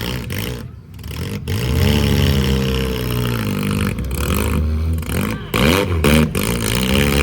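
Vehicle engine revving hard, its pitch rising and falling again and again, with brief dips about a second in and again near the end.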